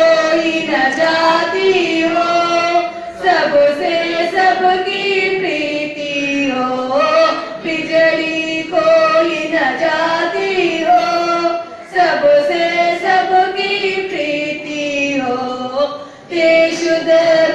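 A group of young Scouts and Guides singing a prayer song together in unison, in sung phrases of a few seconds with short breaks between them.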